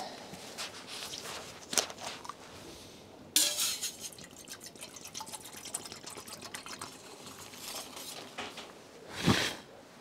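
Camping cookware being handled while coffee is made: light clinks and knocks of a metal pot, lid and cups, with liquid dripping. A sudden rush of noise comes about three and a half seconds in, and a louder brief burst a little after nine seconds.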